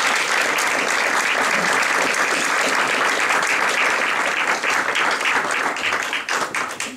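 Audience applauding, the clapping thinning out to a few scattered claps near the end.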